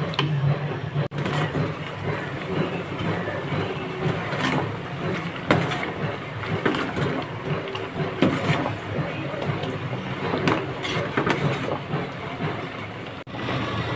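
Pot of vegetables in water boiling hard, a steady bubbling hiss, with a wooden spatula stirring and knocking now and then against the metal pot.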